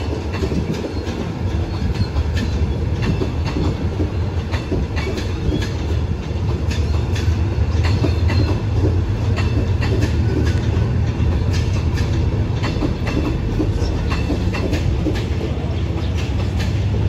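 Train of passenger coaches rolling past at slow speed, a steady low rumble with the wheels clacking repeatedly over the rail joints.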